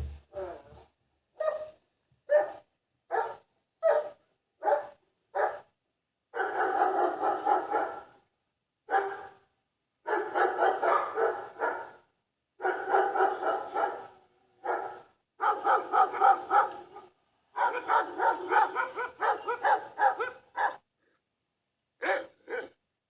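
Dog barking: single barks about twice a second at first, then long runs of rapid barking broken by short gaps, a short pause, and single barks again near the end.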